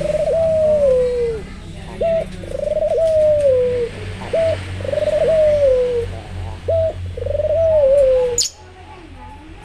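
White (albino) ringneck dove cooing four times in a regular rhythm, each phrase a short clipped note followed by a long coo falling in pitch. A sharp click sounds near the end.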